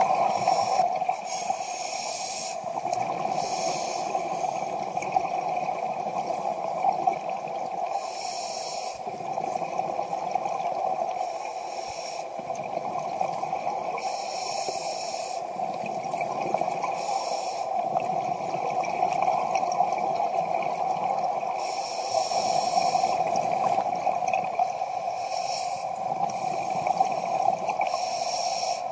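Scuba diver breathing through a regulator underwater: a rush of exhaled bubbles lasting about a second recurs every few seconds over a steady hum.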